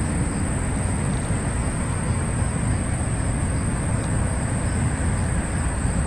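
Steady outdoor background noise with a low rumble, and a faint steady high tone above it.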